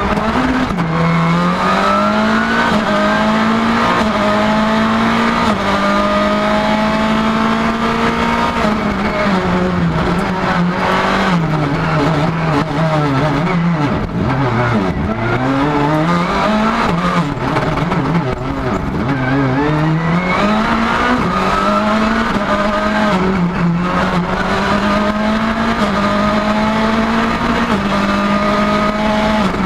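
Suzuki Swift R+ EVO rally car engine heard onboard under hard acceleration, the revs climbing and dropping back with each gear change. The revs fall away low twice near the middle as the car slows for corners, then pull up through the gears again.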